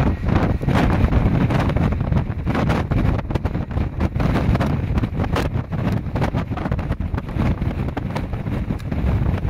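Storm-force wind buffeting the microphone: a loud, continuous low rumble that surges and crackles in irregular gusts.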